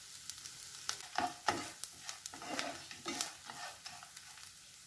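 Spatula stirring and scraping a mix of lentils, shallots, garlic, red chillies and coconut around a non-stick frying pan, in irregular strokes and taps over a faint sizzle of the ingredients sautéing.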